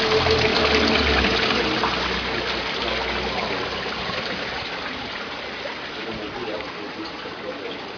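Small waterfall spout pouring and splashing steadily into a garden fish pond, loudest at first and fading gradually.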